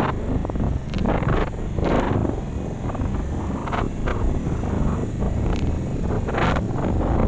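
Vehicle driving up a block-paved road: steady engine and tyre rumble, broken by irregular short bumps and rattles.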